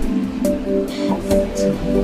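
Background music: sustained notes over a deep bass, with a steady beat of sharp percussion hits about twice a second.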